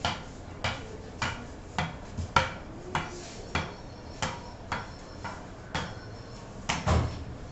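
A ball bouncing again and again on the flat face of a wooden cricket bat, a sharp knock about twice a second. About seven seconds in comes a louder, deeper knock.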